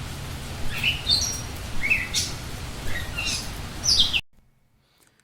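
A bird chirping several times over steady rain; the rain and the bird cut off abruptly about four seconds in.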